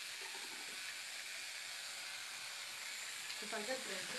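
Steady hiss, with a voice making a short wordless sound near the end.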